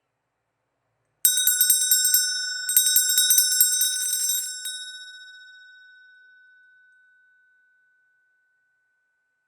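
Small brass Christmas handbell shaken in two quick bouts of rapid tinkling strikes, the second longer. It is then left to ring out, its tone fading over a few seconds.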